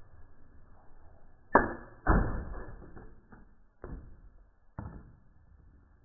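A crossbow bolt strikes a shaken can of fizzy drink and the can bursts: a sharp crack, then a second loud bang half a second later that trails off over about a second. A few lighter knocks follow as the can and bottles are knocked over.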